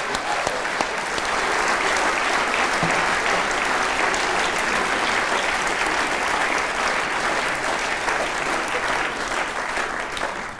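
Audience applauding: a dense, steady clatter of many hands clapping that eases slightly near the end.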